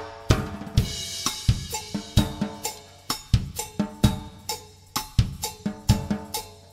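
Acoustic drum kit played alone in a cha-cha groove at 130 beats per minute, with no other instruments. The hits are regular, and a cymbal wash comes in about a second in.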